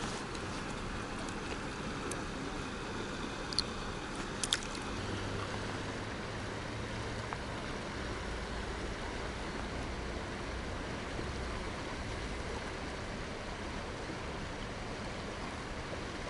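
Steady rush of river water running over a rocky riffle, with a few brief sharp clicks about three and a half and four and a half seconds in.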